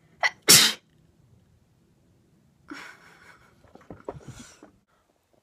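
A woman's sharp, loud breathy outburst about half a second in, then softer breathy sounds with a few clicks.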